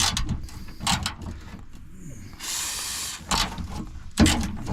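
Clicks and metallic knocks of a wrench cranking on a stuck, rusted bolt, with a hiss of aerosol penetrating oil sprayed onto it for about a second midway through.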